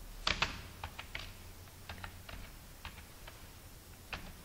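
Computer keyboard being typed on: about a dozen separate, uneven keystrokes, the first two the loudest.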